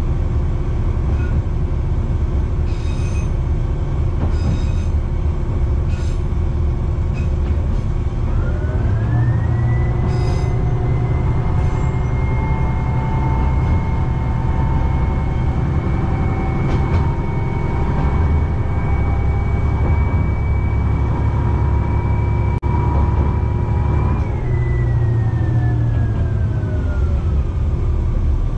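Kishu Railway diesel railcar running slowly on single track, its engine a steady low rumble. About eight seconds in the engine revs up with a rising whine that holds for some fifteen seconds, then glides back down. A few light clicks come in the first several seconds.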